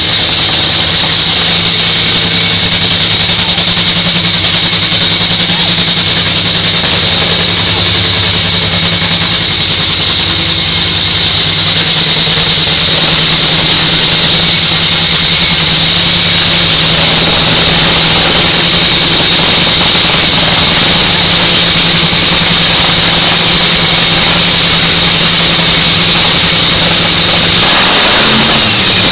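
Nitro Funny Car's supercharged nitromethane-burning V8 running steadily and very loud during a pit warm-up, with a short rise in pitch near the end.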